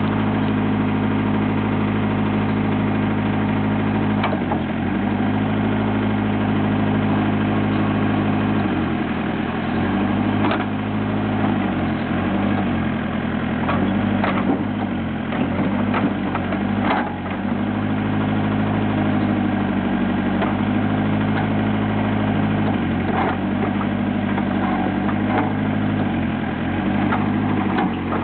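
Perkins four-cylinder diesel of a JCB 208S backhoe loader running at steady speed, dipping briefly in pitch several times as the hydraulics load it, with a few sharp metal knocks from the working machine.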